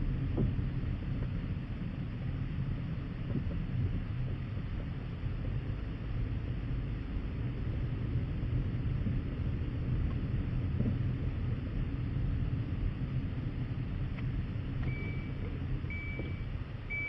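Steady low rumble of a vehicle on the move, heard from inside the cab: engine and road noise. Near the end, reversing beeps start, about one beep a second.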